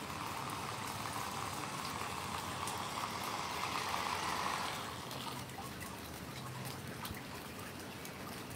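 Small wheeled rover driving over wet concrete, its sound growing louder as it comes closer and stopping about five seconds in. Steady rain pattering and dripping runs underneath.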